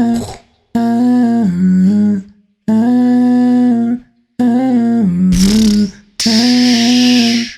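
A man humming a melody through hard-set autotune: four held phrases of about a second and a half each, the pitch snapping between flat notes. A hissing breath sound joins in over the last two phrases.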